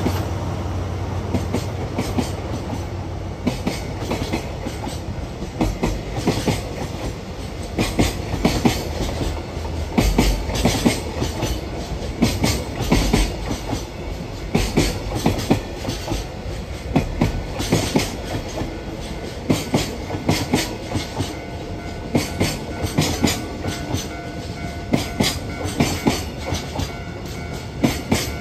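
Freight train wagons rolling past, their wheels clacking over rail joints in uneven clusters of clicks over a steady low rumble.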